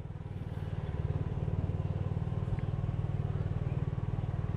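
Small motorbike engine running steadily while riding, its low putter growing a little louder about a second in.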